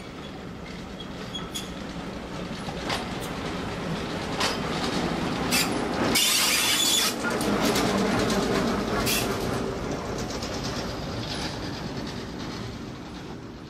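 Heritage diesel-hauled train passing. It grows louder to a peak about six to nine seconds in, then fades, with the wheels clicking over rail joints and a short loud hiss near the peak.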